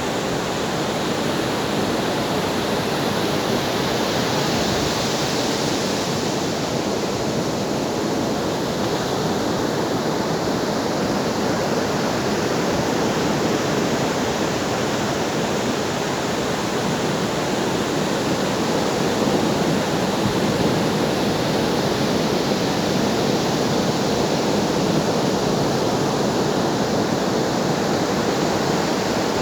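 Ocean waves: a continuous rush of surf that swells and eases slowly, with no separate crashes standing out.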